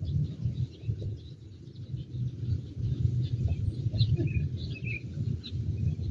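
Small birds chirping in short scattered calls, busiest about four to five seconds in, over a steady low rumble.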